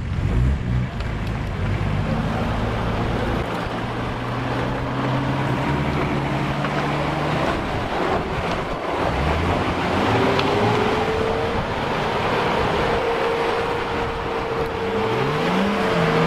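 Off-road 4x4 engines running under load as a Mitsubishi Pajero is hauled on a tow strap up out of a mud pit by a second 4x4. The engine note keeps changing pitch and climbs in a rev near the end.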